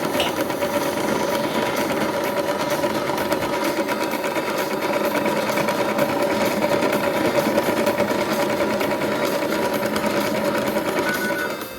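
Toy washing machine's small electric motor whirring steadily with a fixed hum, dropping away near the end.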